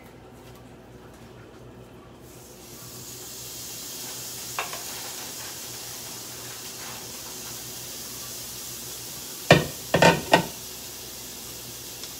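Salmon sizzling on a hot countertop electric contact grill, a steady hiss that sets in about two and a half seconds in as the pieces go onto the plate. Near the end comes a quick run of four sharp clatters of kitchenware.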